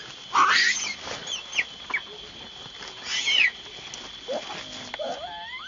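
Newborn macaque screaming: two loud, shrill screeches, just after the start and about three seconds in, with shorter squeaks between them and rising whimpering calls near the end. A steady high tone runs underneath.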